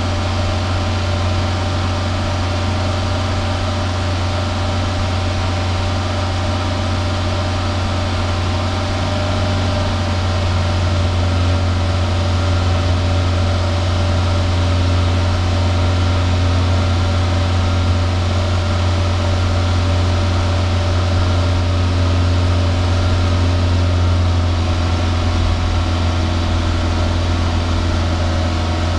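Exhaust of a Toyota 2SZ-FE 1.3-litre four-cylinder engine running steadily at the tailpipe, getting slightly louder about a third of the way in, while it burns off a freshly injected WAKO'S RECS cleaner.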